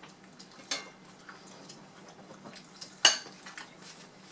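Metal forks and knives clinking and scraping against dinner plates: a few separate clicks, with one sharp, loud clink about three seconds in.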